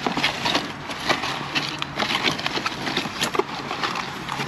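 Irregular light clicks and knocks of sheet-metal smoker parts being handled during unpacking and assembly.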